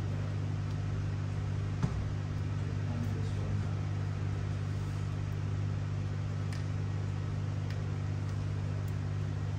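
Steady low hum, with one sharp click just before two seconds in and a few faint ticks later.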